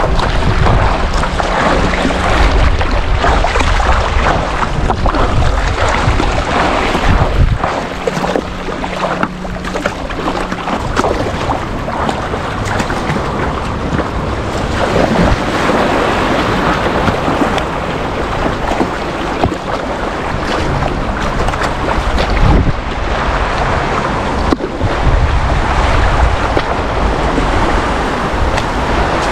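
River water rushing and splashing around a kayak, with gusts of wind buffeting the microphone that come and go, heaviest at the start and again near the end.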